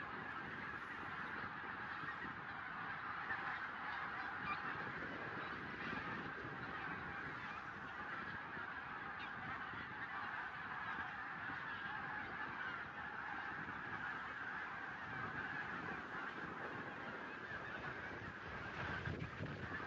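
A large flock of migrating geese honking, many calls overlapping into one continuous chorus.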